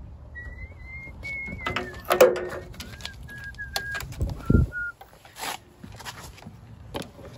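A run of clear whistled notes, each a little lower than the one before, like a short falling tune, with scattered clicks and knocks and a low thump partway through.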